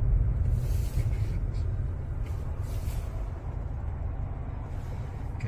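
Steady low rumble of a car's cabin while driving, road and engine noise, easing slightly toward the end.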